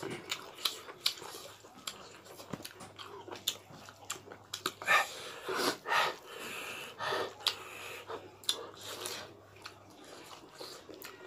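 Close-up mouth sounds of people eating by hand: wet chewing, biting and lip-smacking, with irregular small clicks and a few louder smacks about five to seven seconds in.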